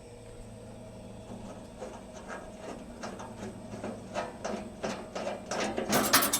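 Band sawmill mechanism clicking after the blade has come off its wheels: the clicks come faster and louder until they form a rapid ratcheting rattle near the end.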